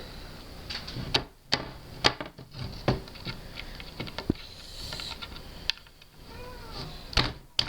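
A hand tool knocking and rubbing along the edge of grip tape on a wooden skateboard deck, with scattered sharp knocks at irregular intervals.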